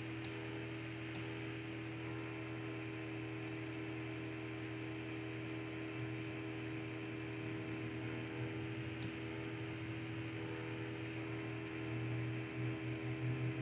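Steady electrical hum with a background hiss, and a few faint clicks: two about a second apart near the start and one more about nine seconds in.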